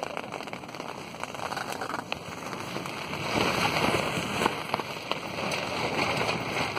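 Heavy storm rain and wind beating on a tent, heard from inside, a dense patter of many small hits that grows louder about three seconds in.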